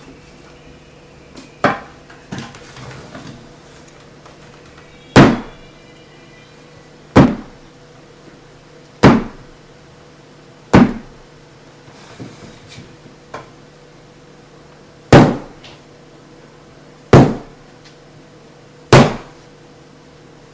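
A series of loud, sharp knocks or bangs, mostly about two seconds apart, with a longer pause in the middle and a few quieter knocks in between, over a faint steady hum.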